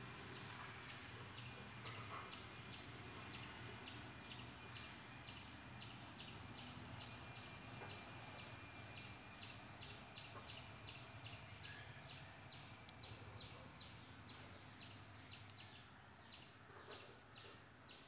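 Faint outdoor ambience: birds chirping in quick repeated notes over a steady high insect drone.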